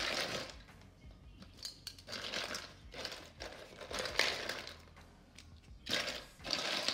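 Ice cubes clinking and rattling in a stainless steel bowl of ice water, in several rounds, as a gloved hand stirs through them and lifts out mustard greens.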